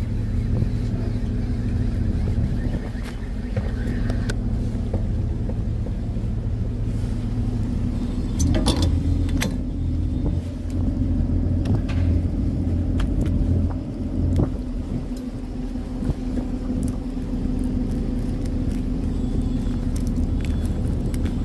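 Fishing boat's engine running with a steady low hum. A few sharp clicks and knocks from gear being handled come near the middle.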